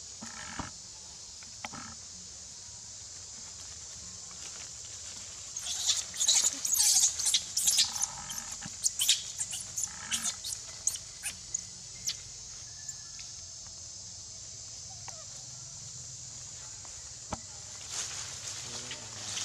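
Steady high drone of forest insects, with a burst of rustling and crackling of leaves and branches in the middle as monkeys climb through the tree. A few short high animal calls come near the start and in the middle.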